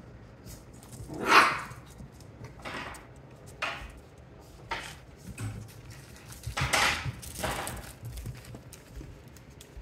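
Six-week-old Australian Shepherd puppy playing with toys on a wooden floor: scuffling and light knocks, with two louder short yips, one about a second in and one about seven seconds in.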